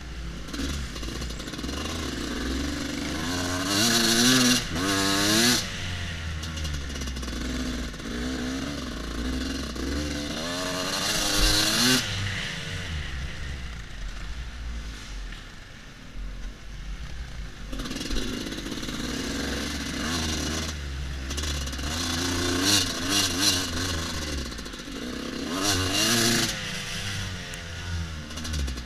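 Husqvarna WR250 two-stroke enduro bike engine heard from on board, revving hard and easing off again and again, its pitch rising and falling with the throttle. It goes quieter for a few seconds around the middle while the throttle is rolled off, then pulls hard again.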